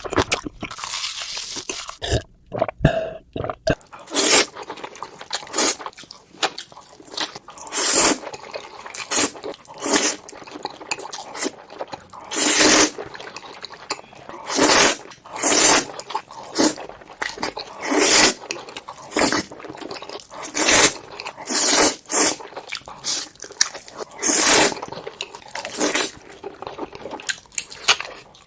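Close-miked mukbang eating sounds: a steady run of crunchy bites and chewing, with a sharp crunch about once a second.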